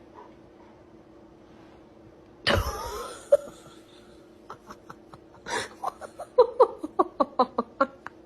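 A person's voice: a sudden harsh cough-like burst about two and a half seconds in, then a quick run of short laughs, about three or four a second.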